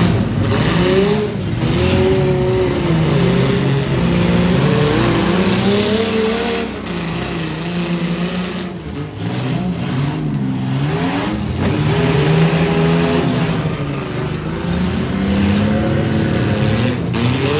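Several demolition derby minivans and SUVs revving their engines at once, the pitches rising and falling as the vehicles accelerate, back up and ram each other.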